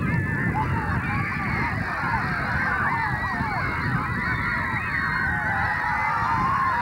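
Crowd of children shouting and cheering, many high voices overlapping without pause.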